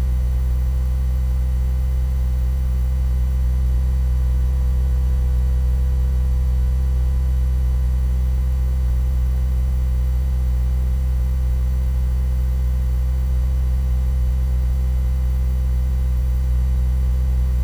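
A steady low hum with a faint higher steady tone above it, unchanging in pitch and level.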